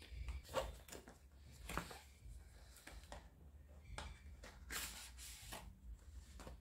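Soft rustling and scraping of a small cardboard box being handled and its inner box slid out of the outer sleeve, with a few light taps. The loudest scrape comes about five seconds in.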